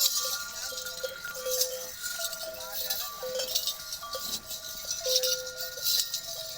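Cowbells on grazing cows clanking irregularly, several bells of different pitches ringing over one another.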